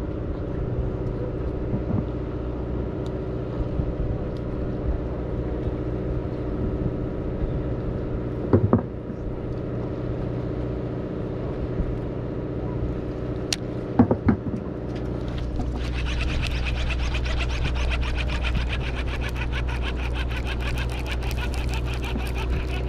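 A fishing boat's engines running steadily, with a few sharp knocks about nine and fourteen seconds in. About fifteen seconds in, a louder hissing rush with a fast, even pulsing joins in.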